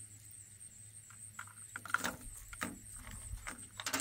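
Metal fishing lures and spoons clicking and clattering against each other as a bag of tackle is rummaged through, in a string of short knocks starting about a second in. Insects keep up a steady high drone behind it.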